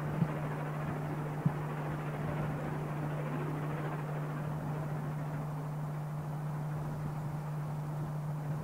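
LMS Princess Royal class Pacific 6201 Princess Elizabeth working hard up the gradient, heard from afar as a steady roar of exhaust, with a steady low hum under it and a couple of light knocks in the first two seconds.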